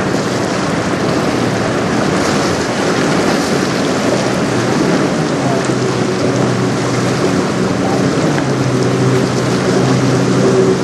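Steady wind and water noise with the drone of a small outboard motor pushing a sailboat, the motor growing louder about eight seconds in.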